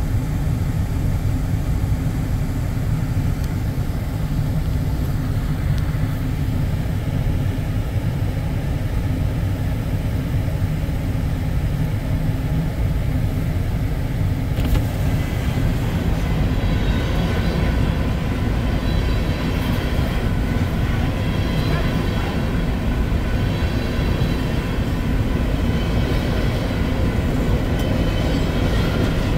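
Freight train of covered hopper cars rolling steadily past, a continuous rumble of steel wheels on rail. About halfway through, brighter, higher wheel noise joins the rumble.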